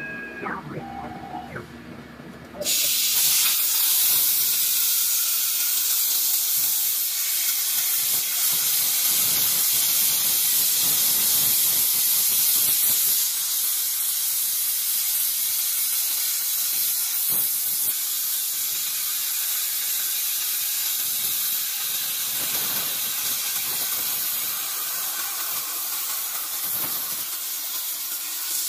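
CNC gantry plasma cutter's torch arc starting up suddenly about three seconds in, then a steady loud hiss as it cuts through steel plate.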